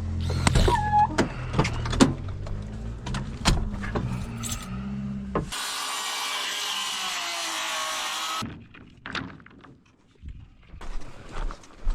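Truck engine idling, with sharp clanks and thunks of tools being loaded. About five and a half seconds in it changes abruptly to a steady rushing noise for about three seconds, followed by quieter scattered knocks.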